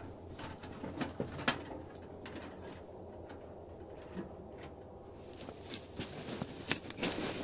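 Scattered light knocks and clinks of a thin sheet-metal tent stove and its stovepipe being handled and fitted together, a few taps about a second and a half in and a quicker cluster near the end.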